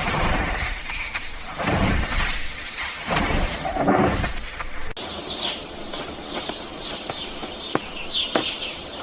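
Rustling and bumping noise with low rumbles for about five seconds, then short, high, falling bird chirps repeating every second or so, with a few sharp clicks.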